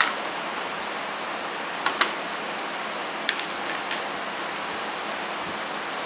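A few short, sharp knife clicks on a cutting board as a cabbage is cut: one at the start, a quick pair just before two seconds in and three more between three and four seconds in. Under them is a steady hiss.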